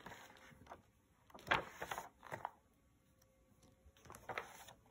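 Paper pages of a paperback book being turned by hand: short soft rustles, with a cluster about a second and a half in and more near the end.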